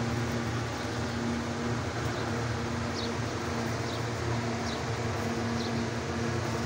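Steady low hum with a background hiss, like a running machine or fan, and faint short high chirps about once a second.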